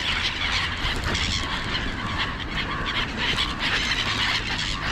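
A flock of gulls calling over one another, many short overlapping cries at once, as they compete for food.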